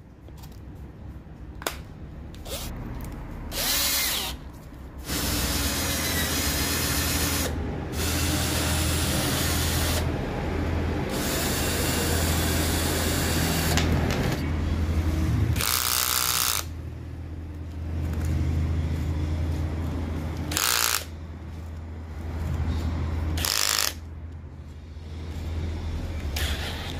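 Cordless drill motor run in several trigger pulls on a rebuilt 18 V lithium-ion battery pack: a long run of several seconds, then shorter bursts. The drill running shows the repaired pack is delivering power.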